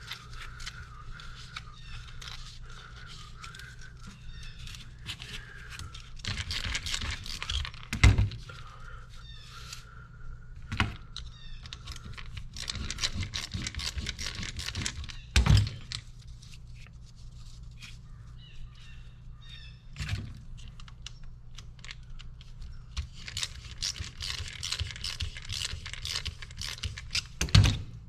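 Hands working on hydraulic cylinder parts during a seal repack: stretches of scraping and rustling, with about five sharp knocks of metal parts set down or tapped, over a steady low hum.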